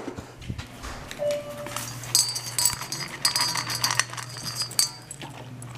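Dog eating dry kibble from a stainless steel bowl: crunching, with kibble and the metal collar tag clinking and jangling against the bowl, busiest from about two seconds in until near the end. A steady low hum runs underneath.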